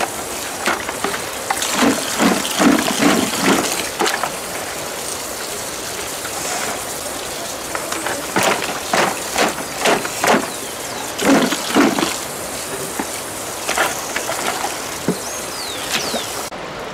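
Tap water running into a plastic bucket while potatoes are washed in it by hand, with bursts of knocking and rubbing as they are scrubbed and turned in the water.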